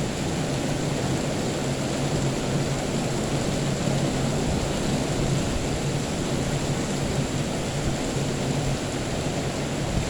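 Steady rain with a continuous low rumble of thunder underneath, even and unbroken, with no sharp claps.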